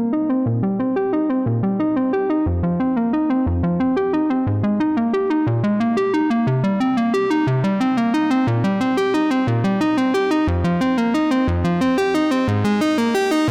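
Background music: quick, repeating synthesizer keyboard notes over a recurring bass line.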